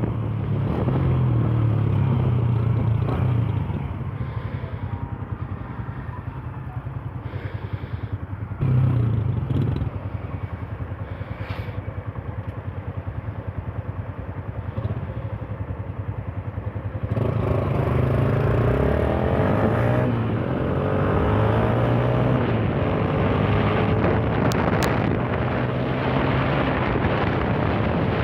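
Yamaha Fazer 150 motorcycle engine running and being revved: louder at first, dropping to a lower, quieter run with a brief rev about nine seconds in, then louder again from a little past halfway with the pitch rising and falling. Wind rumbles on the microphone.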